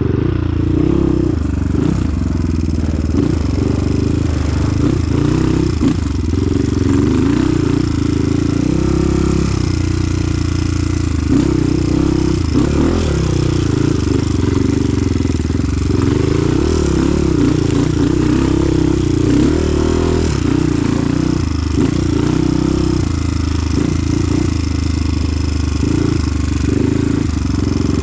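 Engine of an off-road trail vehicle running without a break, its pitch wavering up and down as the throttle changes.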